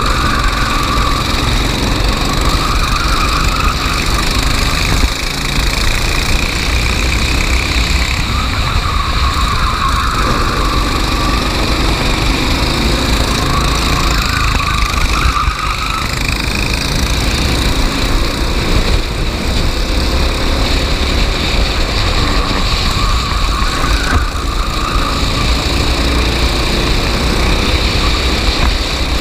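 Racing kart engine running hard, its pitch rising and falling every several seconds as it accelerates and lifts, over a steady low rumble.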